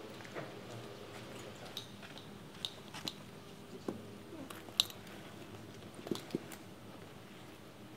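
A handful of small, sharp clicks and taps from a book and a handbag being handled on a library checkout counter, over a low steady room hum.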